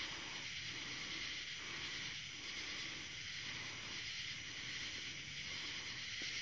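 A steady, high, hissing chorus of night insects with a faint regular pulsing; the distant lightning makes no thunder.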